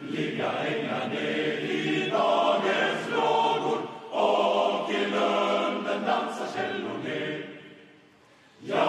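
Large male student choir singing a cappella in sustained chords. The phrase dies away about seven seconds in, and the next phrase starts just before the end.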